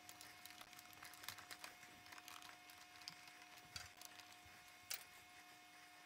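Faint clicks and taps of plastic parts being handled and fitted into a Keurig coffee maker's brew head, with a sharper click about five seconds in, over a faint steady hum.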